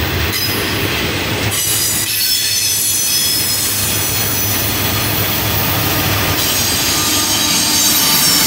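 Double-stack container train rolling past, its wheels squealing on the rail in several high steady tones over the rumble of the cars. The squeal sets in about two seconds in.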